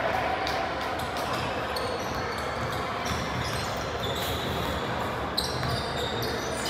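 Basketballs bouncing on a hardwood gym floor amid the general noise of a large, echoing sports hall, with short high sneaker squeaks.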